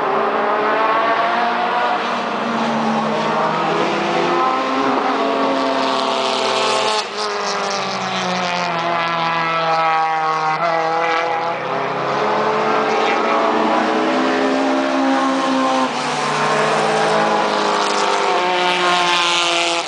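Several touring race car engines running hard through a curve, their overlapping notes rising and falling as the cars brake and accelerate. The sound breaks off sharply and picks up again about seven seconds in and again about sixteen seconds in, as at gear changes.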